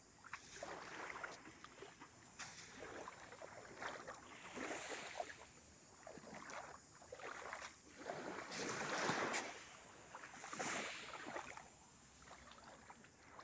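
Small waves lapping at the sandy shore in shallow water, coming in irregular swells, the biggest about nine seconds in.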